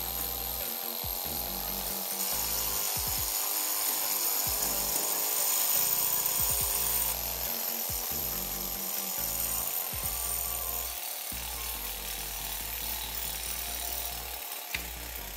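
Miniature alcohol-fired alpha Stirling engine running fast, driving a toy tank's chain tracks, with a steady mechanical running and rattling noise. One sharp click near the end.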